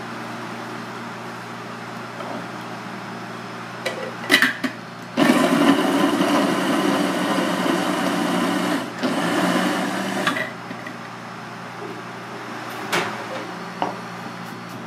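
Small electric food chopper running in two pushes of its lid button, about four seconds and then a second and a half, chopping carrot and onion, with plastic clicks of the lid going on just before. Near the end a kitchen knife knocks on a plastic cutting board a couple of times, slicing garlic.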